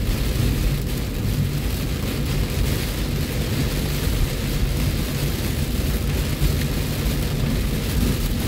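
Heavy rain pelting a car's roof and windshield, heard from inside the cabin as a steady hiss, over the constant low rumble of the car moving along the wet road.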